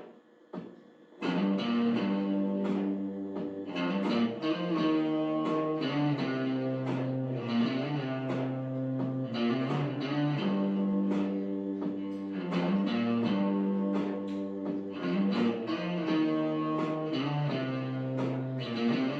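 Instrumental guitar ringtone tune with plucked notes in a steady rhythm over sustained low notes, starting about a second in.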